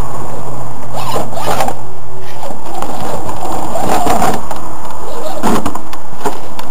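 Electric Axial AX10 rock crawler working over rocks: a steady motor-and-gear hum in the first two seconds, then a string of sharp knocks and scrapes as its tyres and chassis grind against the stones.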